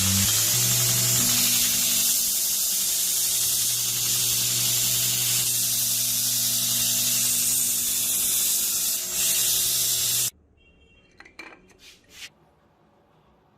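A power tool runs steadily, a low motor hum under a loud hiss, then cuts off suddenly about ten seconds in; a few light clicks follow.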